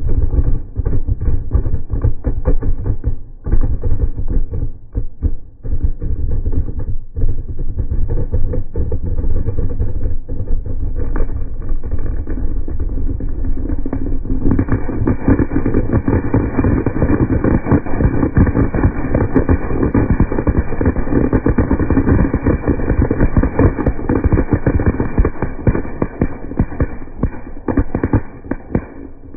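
Large batch of firecrackers going off in a dense, rapid crackle of pops, growing thicker and louder about halfway through.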